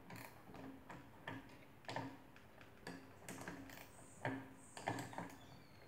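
Light metal clicks and taps from a coil spring and strut assembly being handled in a spring compressor, about a dozen, unevenly spaced.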